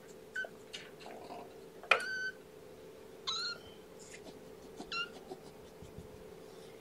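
Kittens about two and a half weeks old mewing: four short, high-pitched squeaky mews, the loudest about two seconds in.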